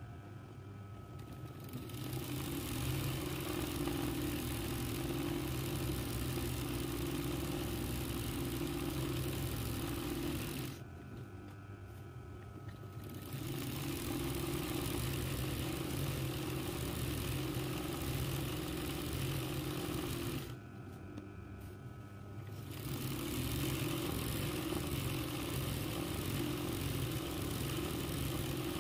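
RANEW 130 zigzag embroidery machine stitching at a steady speed, starting about two seconds in and running in three spells, stopping briefly twice in between.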